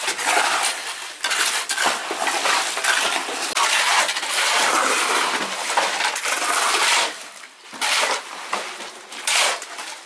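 Metal shovels and trowels scraping and clinking while wet concrete is poured and worked into a foundation tie beam, with a short lull about three-quarters of the way through.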